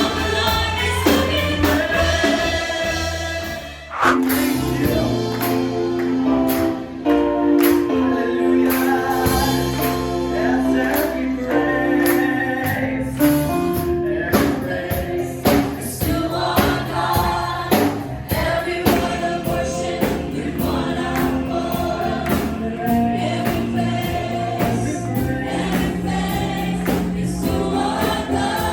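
Live gospel worship music: a choir and congregation singing a praise song over a full band with drums. The music thins out briefly about four seconds in, then picks up again.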